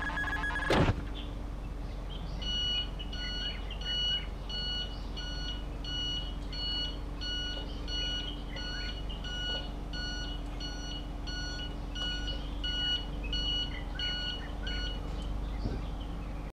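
Electronic beeping: a short pitched beep repeating at an even pace from a couple of seconds in until near the end, over a steady low hum. A single thump just under a second in is the loudest moment.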